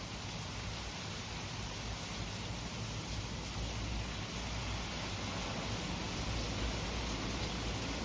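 Steady rainfall, an even hiss of rain falling on the garden.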